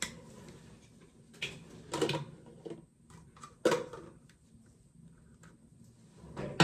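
Several separate knocks and clicks of small objects, such as cosmetic containers from a makeup bag, being handled and set down. The sharpest comes a little past halfway, and another right at the end.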